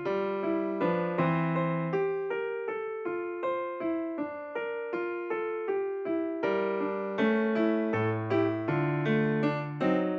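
Background music: a gentle electric piano tune playing a steady run of notes.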